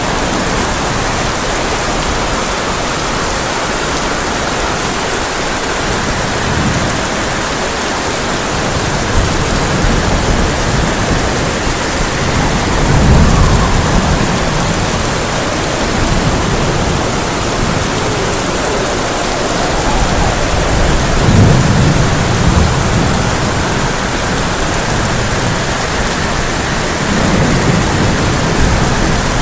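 Heavy rain drumming steadily on a tin roof, with low rolls of thunder swelling up about halfway through, again a little after two-thirds of the way, and near the end.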